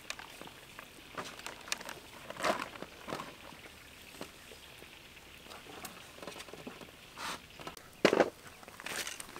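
Scattered soft pats, rustles and clicks of hands coating peeled onions in flour and batter in metal bowls. About eight seconds in comes a louder knock and scrape as a large metal wok is handled onto a wood-fire barrel.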